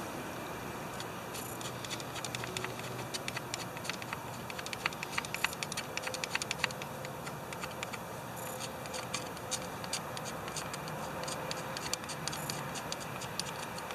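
Scattered light clicks, taps and scratches of small metal parts and tools being handled, coming irregularly and thickest in the middle, over a steady low hum.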